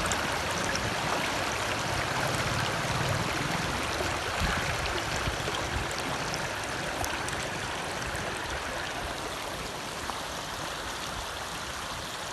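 Steady rushing water of a stream flowing down from a waterfall.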